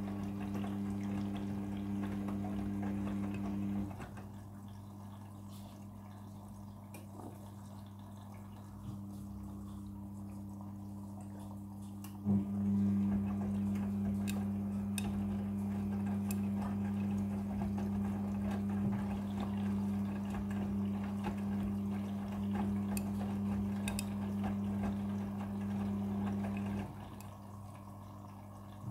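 Midea front-loading washing machine in its prewash, with water running and a steady low hum. The hum drops about four seconds in, comes back louder with a small knock about twelve seconds in, and drops again near the end.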